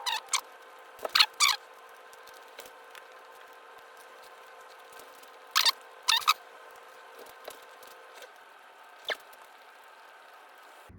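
Eating noises close to the mic while chewing breaded, honey-glazed fried squirrel: a handful of short, sharp smacks and crunches, some in quick pairs, over a faint steady hum.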